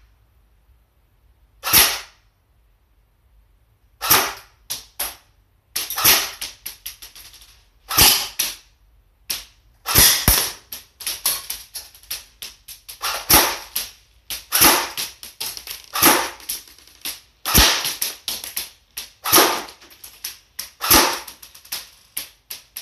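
AK47 airsoft electric gun (AEG) firing, sharp snapping shots, some singly and some in quick runs at irregular intervals, each trailing off briefly.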